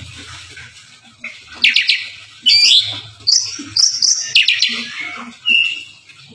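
Oriental magpie-robin (kacer) singing loudly and insistently. From about a second in it gives a run of separate whistled phrases, some sweeping up and down in pitch and one held as a steady whistle.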